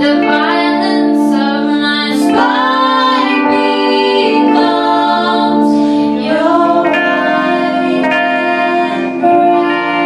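Three women singing live in close vocal harmony, with held keyboard chords sustained beneath the voices.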